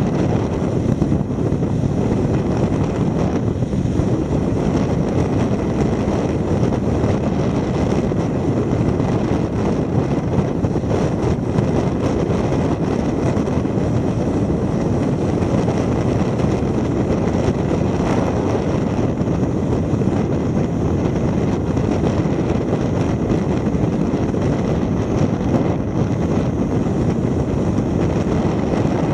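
Steady rush of wind and tyre noise from a car driving along a paved road, picked up by a camera mounted on the outside of the car.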